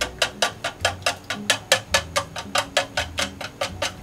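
Raw eggs being beaten with wooden chopsticks in a plastic measuring jug: quick, even clicks of the chopsticks striking the jug, about six or seven a second.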